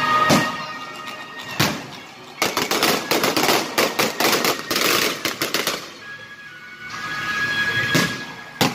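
Aerial fireworks going off: two single bangs, then a dense, rapid barrage of reports for about three seconds, then two more bangs near the end.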